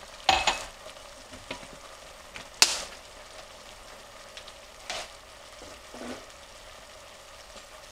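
Chouriço, onion and white wine sizzling steadily in a pot on the stove as the wine reduces. A few sharp knocks cut in, the loudest about two and a half seconds in.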